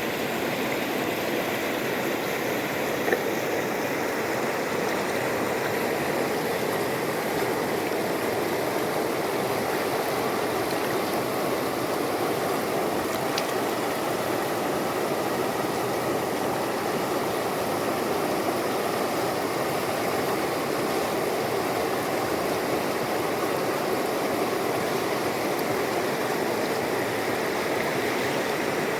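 Hill river rushing steadily, a constant even rush of flowing water.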